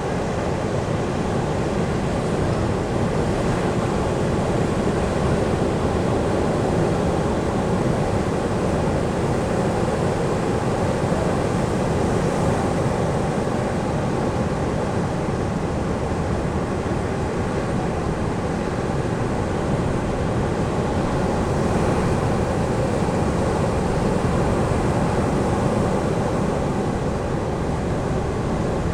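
Ocean surf washing onto a beach: a steady, unbroken roar of waves.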